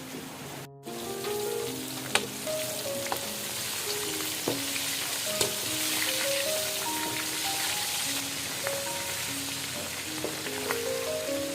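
Food frying in a pan: a steady sizzle, with a few sharp clinks of a utensil against the pan as it is stirred. A soft melody of stepped notes plays underneath.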